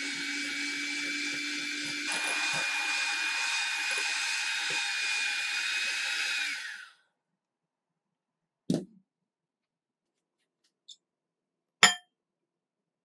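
Electric mixer motor running steadily with a high whine, a little louder about two seconds in, then switched off about seven seconds in. Two sharp knocks follow.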